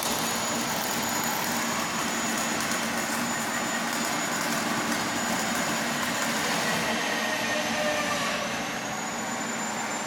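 CO2 (MIG) welding arc burning steadily: an even hissing crackle that holds at one level throughout, dipping slightly near the end.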